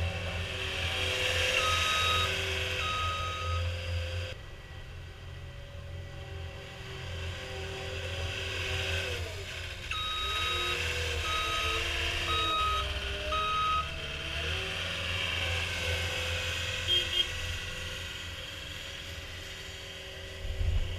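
CAT 236D skid steer loader's diesel engine running, its pitch shifting as the machine works, with the backup alarm beeping twice near the start and four times about halfway through as it reverses.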